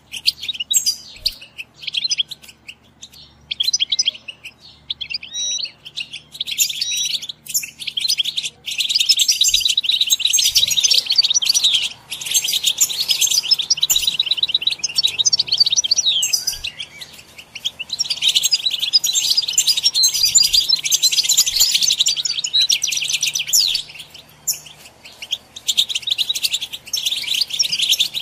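European goldfinch song: rapid, liquid twittering and trills. Scattered chirps at first, then long unbroken phrases with a few short pauses.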